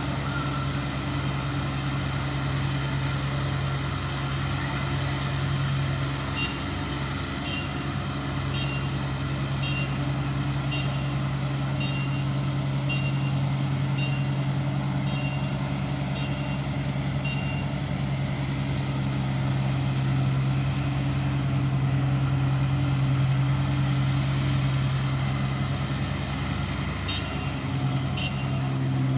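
ISEKI combine harvester's diesel engine running steadily under load. Partway in, a high warning beeper starts sounding about once a second for roughly ten seconds, of the kind a combine sounds when reversing, then beeps a few more times near the end.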